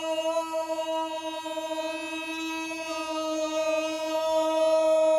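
A voice holding one long, drawn-out shout of "whoa" on a steady pitch, with a slight waver, sustained without a break.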